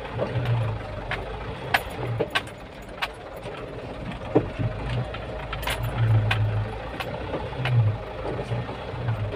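Truck engine running while driving, heard from inside the cab, with frequent sharp rattles and knocks from the cab and its fittings.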